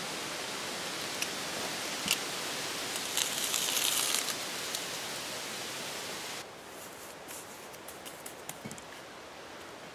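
Small scrapes and clicks of hand mortar work, a steel trowel scraping and tapping wet mortar on the tops of concrete blocks, over a steady hiss. The scraping is loudest about three to four seconds in. The hiss drops suddenly about six seconds in, and lighter clicks and scrapes follow.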